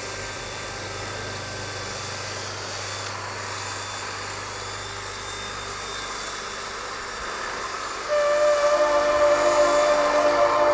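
Skateboard wheels rolling steadily over tarmac at speed down a steep hill. About eight seconds in, a louder steady chord of several held tones comes in over it.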